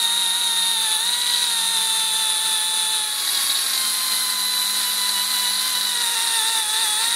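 Die grinder spinning a fine green Scotch-Brite pad, running with a steady high whine as it lightly buffs leftover gasket material off the face of a Walbro HDA carburetor body. The pitch sags slightly a few times as the pad is pressed on the metal.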